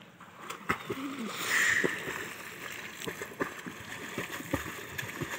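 Water splashing from a swimmer's kicking legs as he pushes a man on an inner tube across open water. Uneven splashes start about half a second in and are loudest near two seconds.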